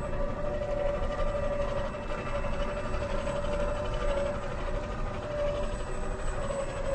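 Electric drive motor and gearbox of a 1/10 scale Lesu Unimog 406 RC truck whining at a steady pitch as it drives, over a rough low rumble.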